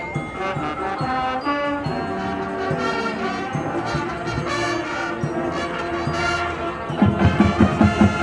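Marching band playing: brass sections sounding a chordal melody of sustained and stepping notes, then loud drum hits coming in about seven seconds in.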